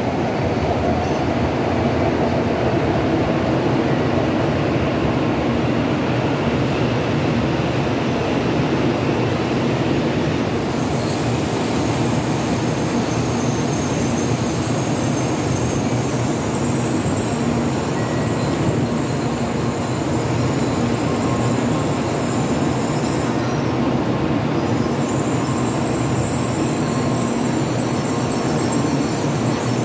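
N700 series Shinkansen train running slowly into a terminal platform as it comes to a stop: a steady rumble of wheels and running gear. A thin high squeal joins in about a third of the way through.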